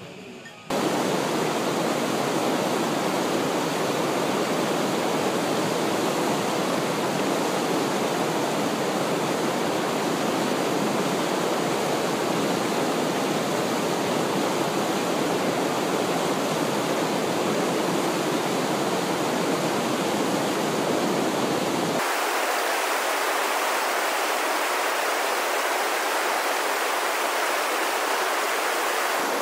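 Steady rush of whitewater from a standing river wave, loud and even, starting abruptly about a second in. About two-thirds of the way through, its deepest rumble drops away suddenly while the hiss carries on.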